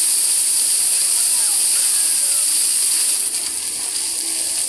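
Floor-level fountain jets spraying and splashing onto wet paving: a steady high hiss of water that eases a little about three seconds in as fewer jets run. Faint voices of people around it underneath.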